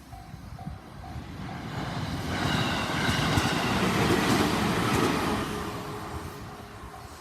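A train passes over the level crossing. It rises to its loudest about three to five seconds in, with sharp wheel clicks over the rail joints, then fades. At the start the crossing's electronic alarm bell dings about twice a second, then is drowned by the train.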